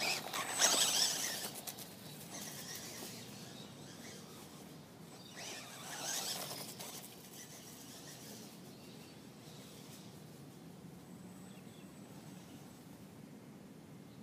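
Toy remote-control car's electric motor whirring in two short runs over the grass, one at the start and another about six seconds in, with a quiet outdoor background between them.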